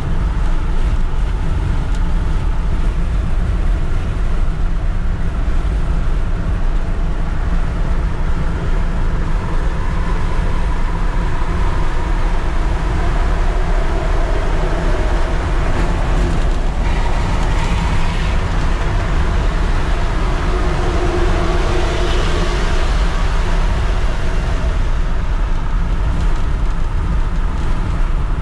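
Road, wind and engine noise inside the cab of a 2001 Ford F350 with a 6.8-liter V10, cruising at about 70 mph on the highway: a loud, steady rumble. It swells through the middle as the truck runs close alongside a tractor-trailer.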